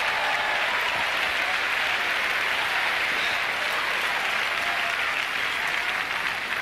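Large arena audience applauding steadily, the applause beginning to die down near the end.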